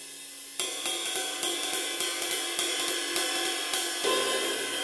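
Ride cymbal fitted with loose split rivets, a 22-inch Paiste 602, played lightly with a drumstick in an even ride pattern of about three strokes a second, the rivets sizzling against the metal. A harder stroke about four seconds in is left to ring and sizzle.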